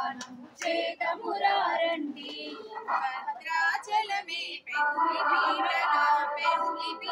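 A group of women singing a devotional song together, in several voices. The singing grows fuller and more sustained about two-thirds of the way through.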